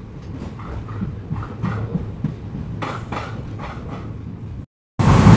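Railway background ambience: a low hum with faint, indistinct voices and knocks. It cuts off abruptly about four and a half seconds in, and a much louder, steady rushing noise starts a moment later.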